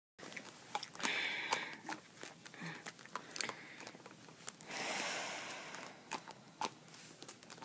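Handling noise from a doll being moved on a bedspread: scattered small clicks and knocks, with a longer rustle about a second in and another around five seconds.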